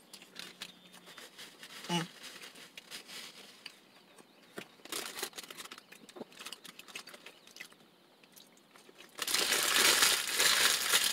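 Faint chewing and small mouth clicks, then about nine seconds in a sandwich's paper wrapper is crinkled loudly in the hands.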